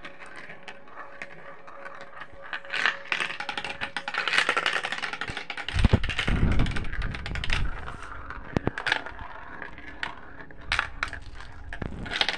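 Marbles rolling and clattering through a plastic marble run, with many sharp clicks and ticks as they strike the tubes and pieces. A low rumble swells about six seconds in.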